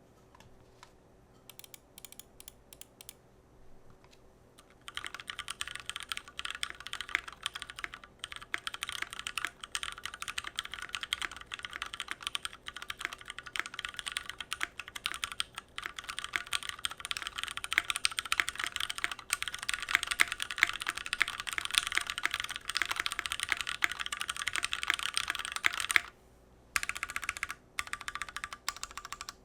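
Typing on a Keychron Q1 mechanical keyboard with a gasket-mounted aluminium plate: a few scattered keystrokes, then fast continuous typing from about five seconds in, a brief pause near the end, and typing again.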